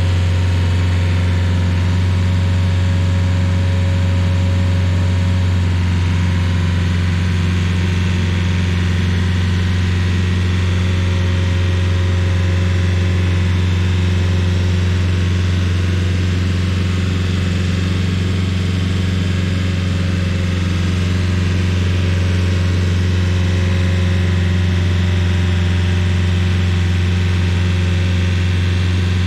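Rayco RG50 stump grinder's engine running with a deep, steady, unchanging drone while its cutter wheel grinds out surface roots.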